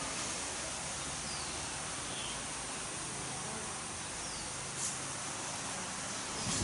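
Steady outdoor background hiss, with a few faint, short, falling high chirps from a bird and a soft tick about five seconds in.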